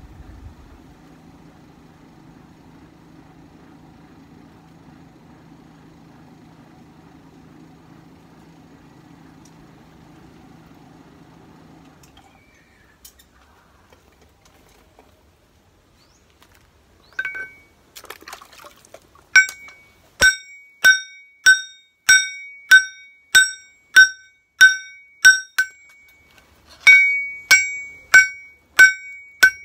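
A hand hammer striking a red-hot knife blade on a steel anvil, about one and a half blows a second, each blow ringing brightly; the blows start about two-thirds of the way in, with a brief pause before the last few. Earlier there is a low steady hum that stops partway through.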